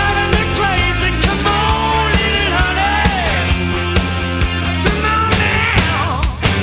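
Rock music with a heavy beat, distorted guitars and a singing voice.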